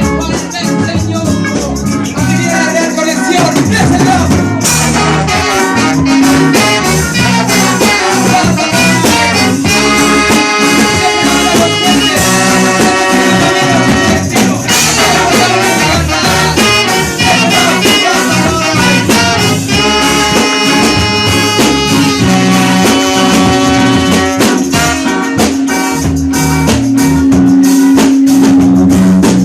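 Loud music through a sound system: a horn section playing held notes over a steady beat with a shaker.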